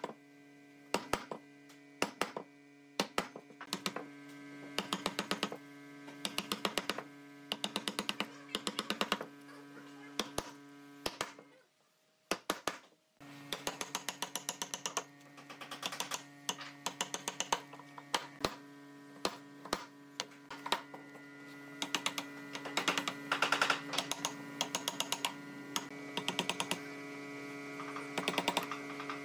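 Wooden mallet striking a steel chisel in quick runs of light taps, chopping out a mortise in a hardwood slab, over a steady hum. The sound cuts out briefly about twelve seconds in.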